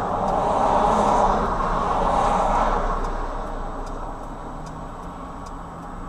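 Road traffic passing: cars' engine and tyre noise swelling and fading twice in the first three seconds, then dying down.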